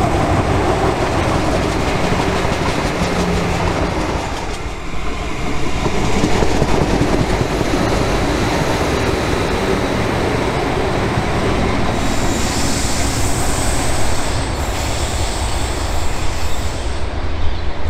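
Adelaide Metro 3100-series diesel railcar running close past on a curve: its diesel engine and the wheels rumbling on the rails, loud and steady. A thin, high wheel squeal joins in during the second half.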